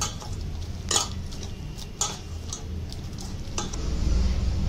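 A hand mixing wet rice-flour batter in a stainless steel bowl, with a few sharp clinks against the steel about a second apart.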